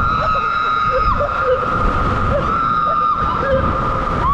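Riders' long, high-pitched held screams, twice, with shorter whoops between, over the rush of water and the raft sliding through the water slide's funnel.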